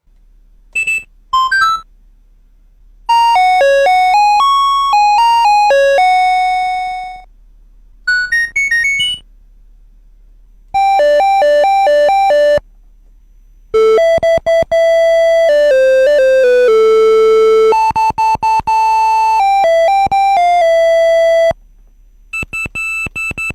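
A 40-year-old electronic keyboard playing a series of short, separate note phrases that imitate everyday sounds of modern life, with short pauses between them. One phrase fades away slowly, one is a fast run of repeated notes, and near the end two notes alternate.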